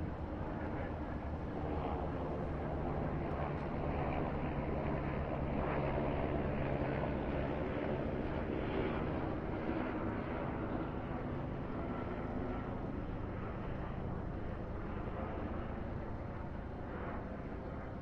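Outdoor ambience with a steady engine drone that builds to its loudest in the middle and then eases off, as of a motor passing by.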